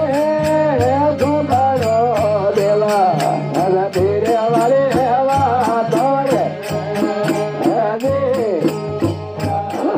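Rajasthani devotional folk music: a man sings a gliding melody over a steady low drone, with a quick, regular percussion beat.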